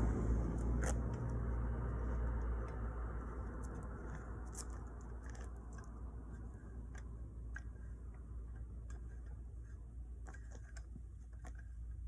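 A vehicle's low rumble fading away over the first few seconds, then scattered light clicks and ticks of gravelly cold-patch asphalt being worked by hand.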